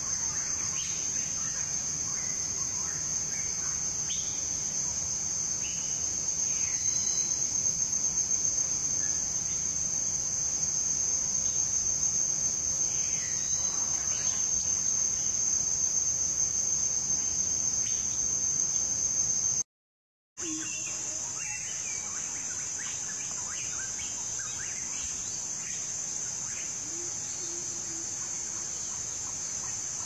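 A steady high-pitched insect drone with scattered short bird chirps over it. The sound breaks off for a moment about two-thirds of the way through, then the drone carries on.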